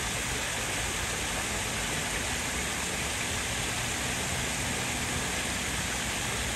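Steady, even rushing noise, like running water.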